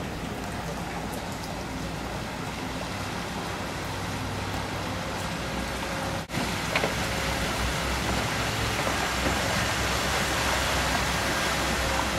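Steady hiss of water and wind noise, with a low rumble underneath, as the electric trimaran runs by throwing a wake. The sound drops out for an instant about six seconds in, then comes back a little louder.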